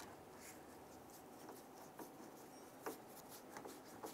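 Faint, scattered scraping clicks of a Phillips screwdriver turning a screw up through a plastic bumper cover into the car body.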